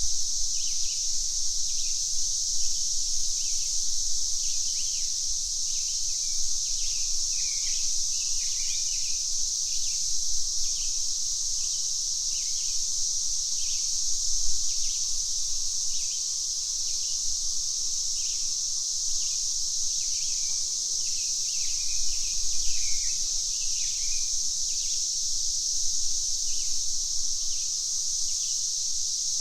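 Steady high-pitched drone of cicadas, with many short bird chirps scattered throughout.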